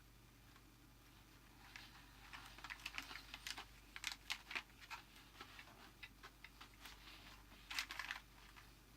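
Crunchy oat-and-seed flapjack being chewed close to the microphone: faint, irregular crunches beginning about two seconds in.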